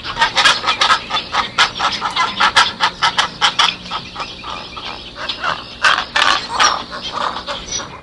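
Painted storks at a colony making a dense run of harsh, rasping notes, several a second, with louder clusters about half a second in and again around six seconds in.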